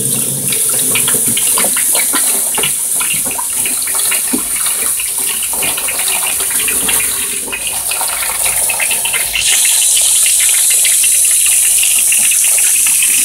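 Water from a garden hose pouring into a plastic bin, splashing on the water and over a submerged wire mesh cage; the flow gets louder about nine and a half seconds in.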